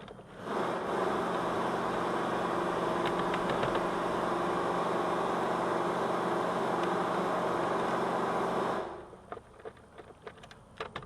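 A motor-driven machine runs steadily with an even hum for about eight seconds, switching on abruptly just after the start and cutting off abruptly near the end, with a few light clicks partway through.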